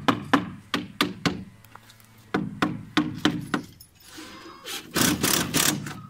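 Hammer tapping on the awning's plastic panel and bracket frame, a quick run of knocks about three a second that stops after about three and a half seconds. A louder scraping rustle follows about five seconds in.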